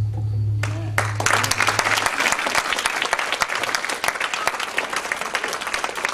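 Audience applauding, starting about a second in and carrying on steadily. Under the start of it, a deep low note left over from the closing music dies away about two seconds in.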